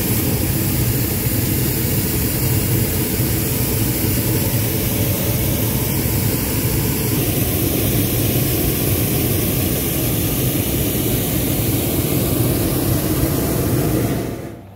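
Hot air balloon's propane burner firing: a loud, steady roar that holds level and cuts off near the end.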